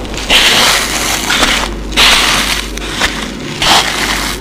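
Crunching noise that rises and fades in swells about every second and a half, over a steady low hum.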